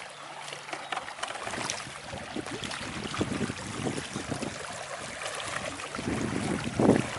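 Flowing water with irregular small splashes and clicks, growing louder about six seconds in.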